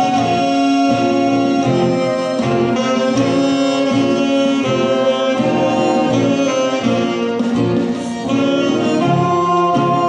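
Small folk band playing a tune on accordion, saxophone, tuba and guitar.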